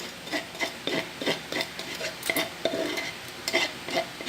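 A kitchen utensil clinking and scraping against a dish in quick, irregular strokes, about four a second.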